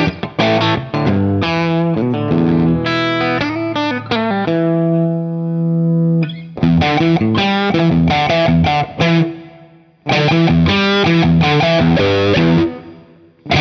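Electric guitar played through an EarthQuaker Devices Acapulco Gold distortion pedal into a Vox AC30 on its clean channel: heavily distorted riffs and chords in the style of a tube amp turned all the way up. Three times, about six, ten and thirteen seconds in, a chord rings out and fades before the playing starts again.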